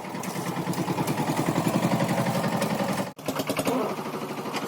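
An engine running with a steady, rapid chugging pulse. The sound drops out for an instant about three seconds in, then carries on.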